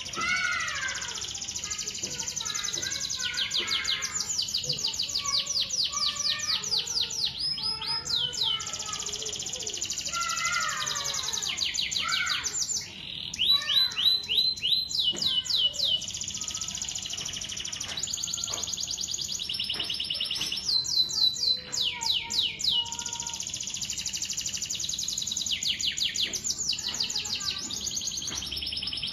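Domestic canary singing a long, unbroken song of fast trills: one rapid run of repeated falling notes after another, high-pitched, each run changing pitch and speed.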